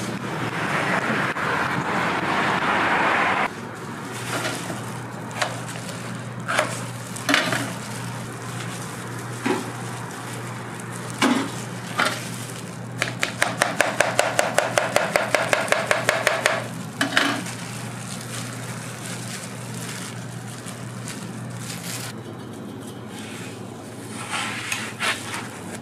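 Kitchen work at a crepe stall: a knife chopping fast on a plastic cutting board, about six strokes a second for three to four seconds in the middle, among scattered knocks and clicks. Near the end a metal spatula scrapes lightly on the crepe griddle. A steady low hum runs underneath.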